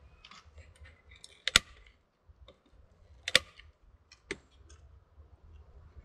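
Sharp clicks from hand tools at work: three loud ones and several fainter ticks, with a low rustle between.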